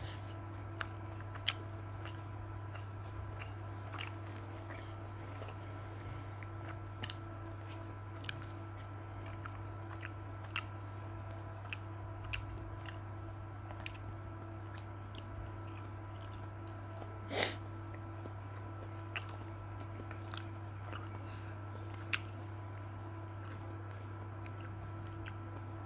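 Close-miked chewing and small mouth clicks as a man eats prawn sushi, over a steady low hum. One louder, brief noise comes about seventeen seconds in.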